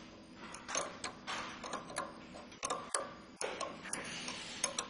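Ratchet wrench clicking irregularly as it turns the nut of a filter-extractor tool, drawing the inlet filter out of a Denso common rail diesel injector, with light metal clicks of the tool being handled.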